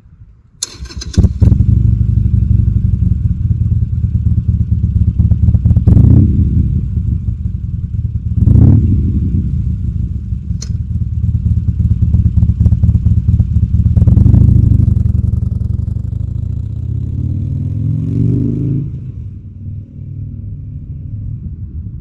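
Harley-Davidson Sportster 883 Iron's air-cooled V-twin, breathing through a Supertrapp 2-into-1 SuperMeg exhaust, starting about a second in and idling with three throttle blips. Near the end it pulls away with rising pitch and fades into the distance.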